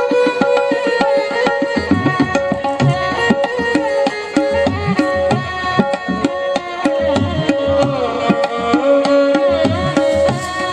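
Background music with tabla drumming under held melodic tones.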